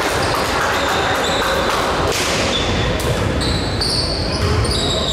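A basketball bouncing on a gym's hardwood floor in a game, with repeated thuds. Short high squeaks come in over the second half, against the echoing noise of the hall.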